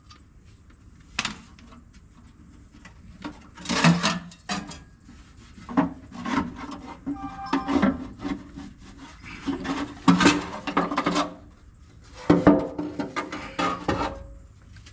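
Irregular scraping and rubbing strokes, each lasting about half a second to a second, heard while engine parts are being cleaned.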